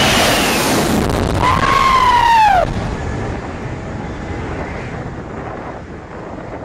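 A jet airliner passes low overhead with a loud roar, and about a second and a half in a high tone swoops up and falls away over about a second. Near the three-second mark the roar cuts off sharply to a softer, steady rush of jet blast and wind on the microphone.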